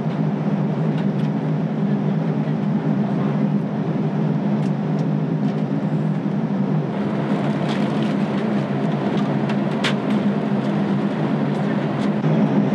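Steady cabin drone of a jet airliner in cruise: engine and airflow noise, strongest low down. A few light clicks come in the second half.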